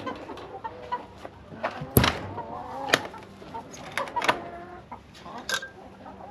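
Chickens clucking in a coop, with several sharp knocks; the loudest comes about two seconds in.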